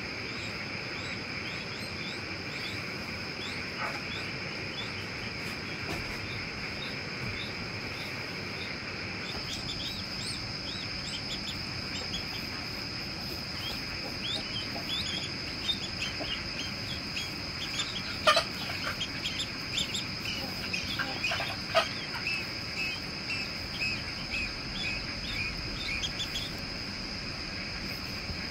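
Ducklings peeping, chilled ducklings being warmed by hand under a heat lamp: rapid high peeps that thicken about a third of the way in and carry on to near the end. Underneath is a steady drone of crickets, and a couple of sharp clicks come in the second half.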